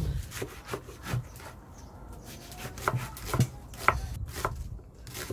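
Chef's knife chopping vegetables on a thick wooden cutting board, first cabbage leaves and then a large onion: a series of irregularly spaced knocks of the blade through the vegetable onto the wood.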